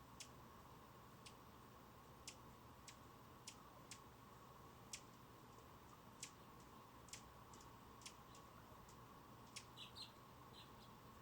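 Hummingbird chip calls: faint, sharp, high single chips at irregular intervals of roughly one a second, with a few short twittering notes near the end, over a faint steady hum.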